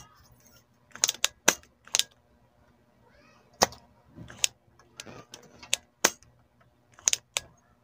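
Spring-loaded desoldering pump snapping over and over while solder is cleared from the pins of a CRT TV's horizontal output transistor: a string of sharp, irregular clicks, some in quick pairs.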